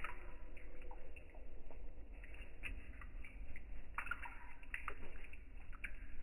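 Water dripping and plinking in irregular drops, several short plops a second.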